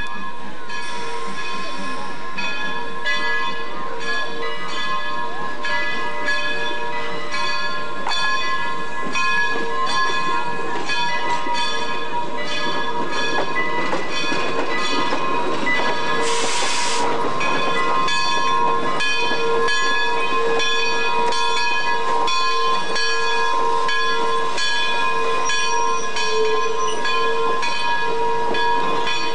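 Steam locomotive's bell ringing in a steady, even rhythm as the train moves slowly past, with a short burst of steam hissing a little past halfway.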